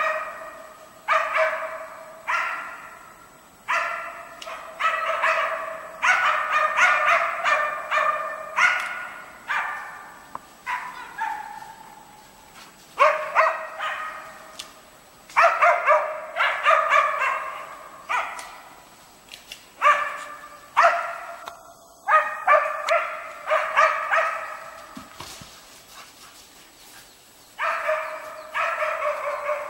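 West Siberian laikas barking at bay on moose: runs of rapid, high barks with short pauses between them, kept up throughout, holding the moose and marking where they are for the hunter.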